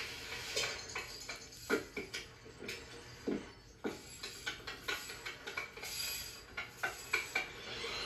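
Checker pieces clicking and clattering on a checkerboard, a string of light, irregular knocks and clinks, heard through a TV speaker.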